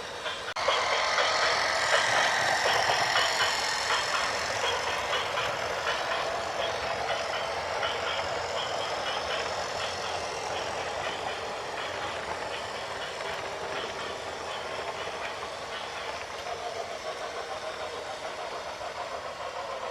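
Engine of a heavy machine such as a truck or excavator running steadily, starting about half a second in.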